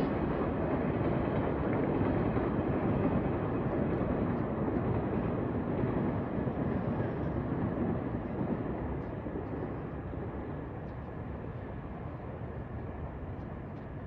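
Train running on the tracks: a steady low rumble that fades away about eight to ten seconds in.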